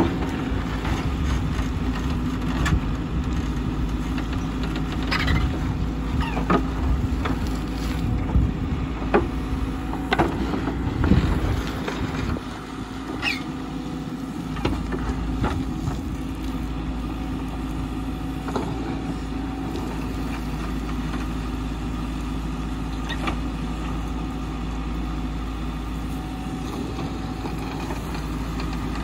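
Caterpillar 434E backhoe loader's diesel engine running steadily under load while its backhoe bucket digs rocky soil. There are sharp knocks and clanks from the bucket and stones, most of them in the first twelve seconds, then mainly the steady engine.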